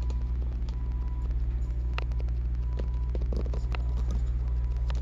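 A steady low rumble, with scattered light clicks and taps of equipment being handled.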